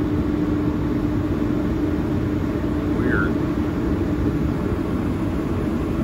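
Large commercial air handler running: a steady rush of moving air from its blower, with a steady hum underneath.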